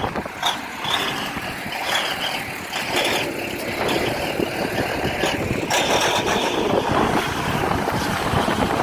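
Heavy diesel engine running steadily, with a few short knocks.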